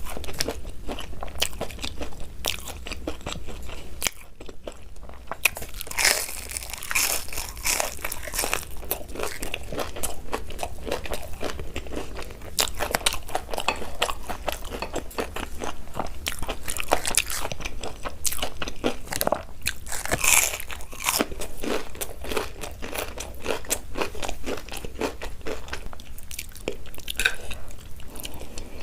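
A person eating Korean-style instant noodles: a dense run of small crunching, smacking clicks from biting and chewing, with a short pause about four seconds in.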